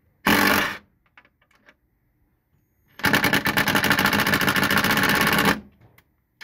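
Cordless impact driver hammering on a fastener in the fender flare: a short burst near the start, then a longer run of about two and a half seconds.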